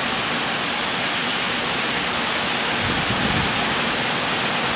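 Heavy thunderstorm rain falling in a steady downpour.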